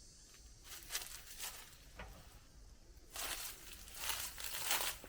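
Irregular rustling and scraping with a few light knocks, the handling noise of tools and parts being moved about, loudest in the second half.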